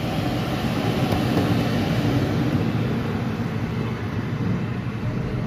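Road traffic going by: a steady vehicle noise that swells a little a second or two in and then eases off.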